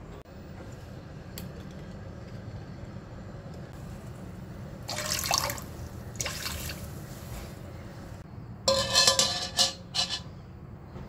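Water poured in two splashing streams into a stainless steel wok, then, near the end, several ringing metallic clanks as a wire steaming stand is set down in the wok; the clanks are the loudest sounds.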